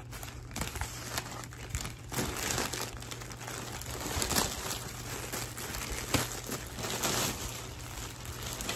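Packaging crinkling and rustling in irregular crackles as a small item is unwrapped by hand.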